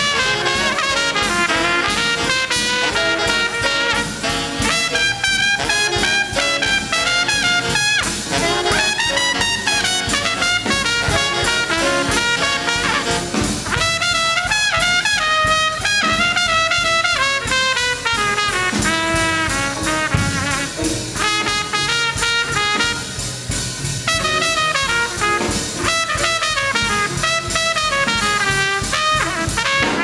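Live swing big band playing an up-tempo instrumental, a trumpet out front over drums, upright bass and a saxophone section.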